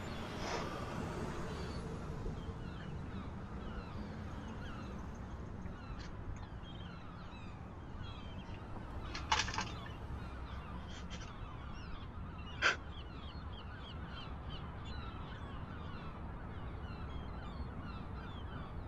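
Outdoor ambience of birds calling over a steady low rumble, with two short, louder calls about three seconds apart, the first of them doubled.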